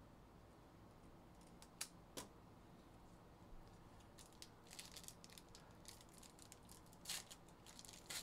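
Faint crinkling and tearing of a foil trading-card pack wrapper being torn open by hand, in short crackles from about halfway in, loudest near the end. Before it come a couple of soft clicks.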